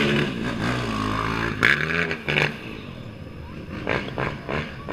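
Race quad (ATV) engine revving hard as it accelerates past, loudest about two seconds in, its pitch dropping as it goes by and then fading.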